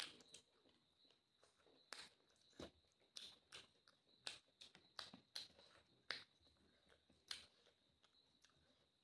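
Soft eating sounds from chicken curry and rice eaten by hand: quiet chewing with scattered, irregular mouth clicks and smacks, roughly one or two a second, fewer near the end. A faint steady high-pitched whine sits underneath.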